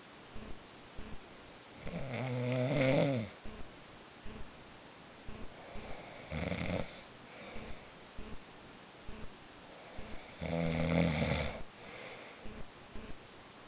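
Loud snoring of someone asleep: three snores about four seconds apart, two long rattling ones about two seconds in and near the end, and a shorter one between them, with faint clicks in the pauses.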